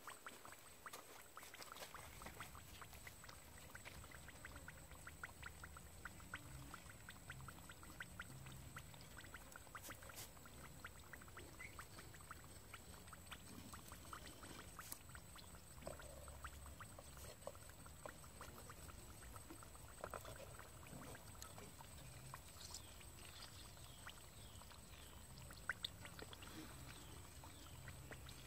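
Faint sizzling and crackling of eggs frying in a clay pan over a wood fire, with many small scattered pops over a low steady rumble.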